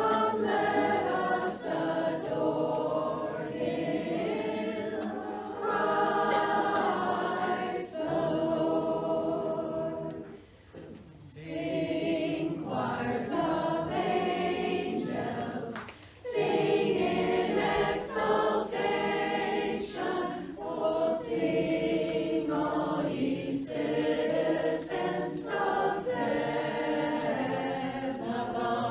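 Women's barbershop chorus singing a cappella in close harmony, sustained chords in long phrases with two short breaths between phrases, about ten and sixteen seconds in.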